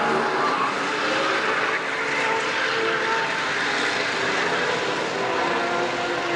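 Several racing kart engines running at speed together, their notes at different pitches rising and falling as the karts accelerate and lift off.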